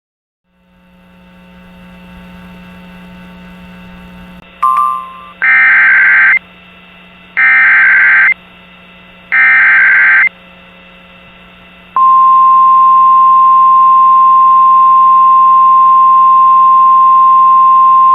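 Emergency Alert System signalling as heard over weather radio, starting with faint hiss and hum and a short click and blip. Then come three loud, evenly spaced, roughly one-second bursts of SAME header data screech. A couple of seconds later the steady single-pitch 1050 Hz NOAA Weather Radio alert tone starts and holds, marking that a warning is being issued.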